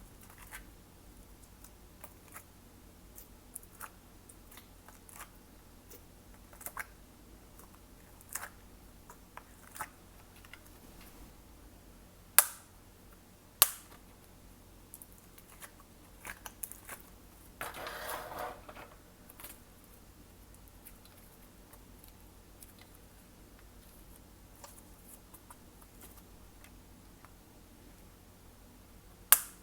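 Slime being handled and mixed: a run of small sticky clicks and pops, with two sharp louder pops near the middle and a brief crackly squish a little later.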